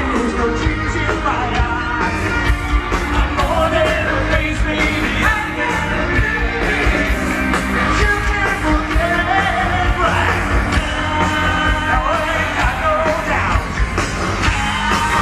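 Live rock band playing through a festival PA: a singer over loud amplified rock instruments and a steady drum beat.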